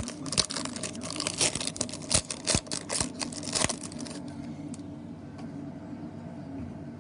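Trading-card pack wrapper being torn open and crinkled: a dense run of sharp crackles that stops about four seconds in, over a low steady hum.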